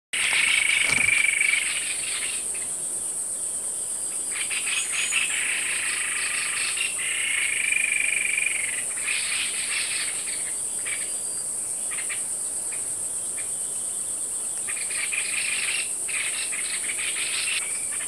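White-bibbed babbler calling. It gives a held whistled note at the start and again about seven seconds in, between several bouts of fast, closely spaced rattling trills: the rapid 'shot-like' calling that earns the species its nickname 'sniper bird'. A steady, high-pitched insect drone runs underneath.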